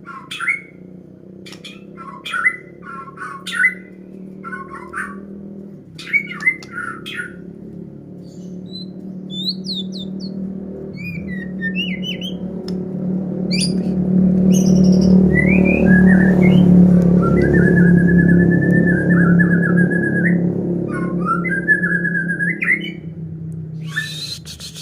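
A murai songbird practising its song: short chirps and broken whistled phrases, with a longer wavering whistle held for a few seconds in the second half. Under it a low steady hum swells up in the middle and fades again, and a short noisy burst comes near the end.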